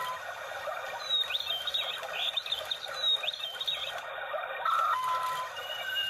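Recorded birdsong playing from a singing motion bird clock's built-in speaker: repeated short chirps and quick rising and falling whistles over a steady noisy background.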